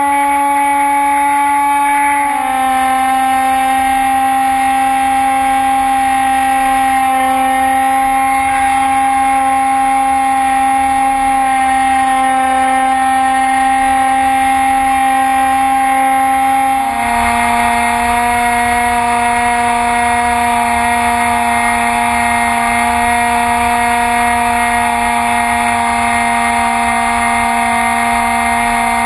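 Electric motor and propeller of an RC FPV plane, heard through a camera mounted on the aircraft: a steady, loud whine over rushing wind noise. The pitch drops slightly about two seconds in and again about seventeen seconds in as the throttle is eased back.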